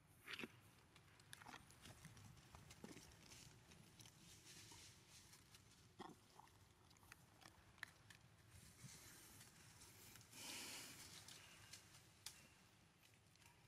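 Faint rustling and scattered small clicks as macaques grab at and handle food in a person's hands, with a longer, louder rustle about ten and a half seconds in.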